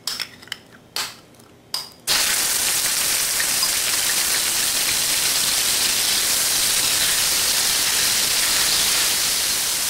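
Ground pork hitting hot oil in a stainless steel electric wok, setting off a loud, steady sizzle that starts suddenly about two seconds in. A few light knocks come just before it.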